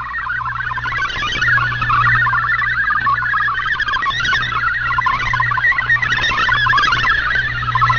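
Shortwave radio receiving a digital-mode data transmission: a dense, fast-chattering warble of many shifting tones, with a steady low hum underneath.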